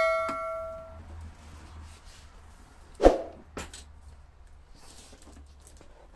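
Metal ringing from the Scheppach HS-105 table saw after a clang, several clear tones fading out within about a second. About three seconds in, one heavy thud as the saw is tipped over and set down on its side, followed by a couple of light knocks.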